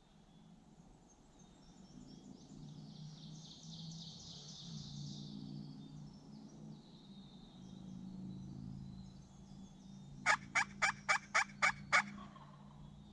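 A run of seven turkey yelps near the end, evenly spaced at about four a second, loud and close.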